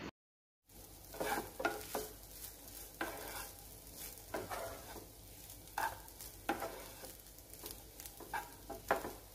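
Wooden spatula stirring and scraping cooked rice and scrambled egg around a frying pan, in irregular strokes over a faint sizzle from the hot pan. It begins after a brief dead gap.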